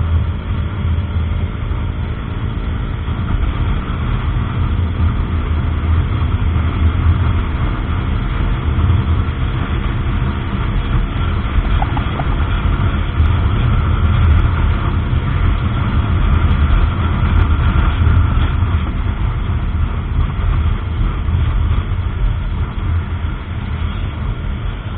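A KTM Duke 125's single-cylinder engine running at a steady cruise, under a loud, steady rush of wind on the microphone.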